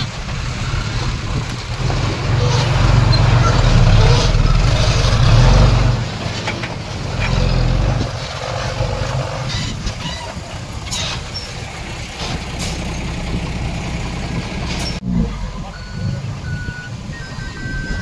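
Heavy diesel earthmoving machinery running under load, its engine loudest and deepest from about two to six seconds in. Near the end, after a cut, short reversing-alarm beeps sound.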